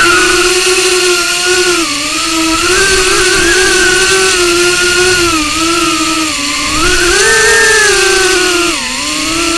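Small 105 mm FPV quadcopter's brushless motors and 2-inch propellers whining, heard through its onboard camera's microphone. The pitch rises and dips again and again as the throttle changes in flight.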